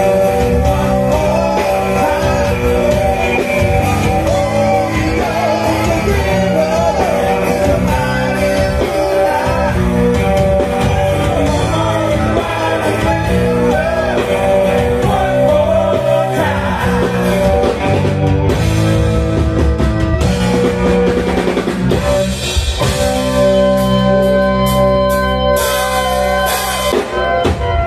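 Live rock band playing loud: electric guitar, drum kit and keyboards, with singing.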